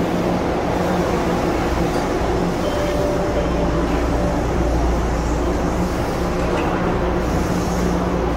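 Steady low rumble and hum of an MBTA Blue Line subway train at an underground station platform.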